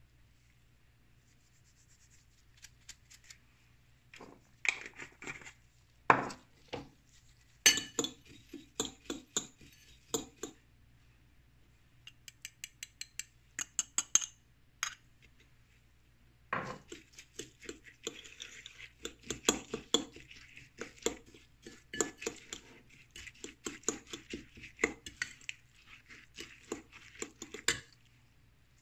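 Kitchen utensils clinking and tapping against bowls and dishes: scattered clinks at first, then runs of quick, even taps, with the longest run starting a little past halfway.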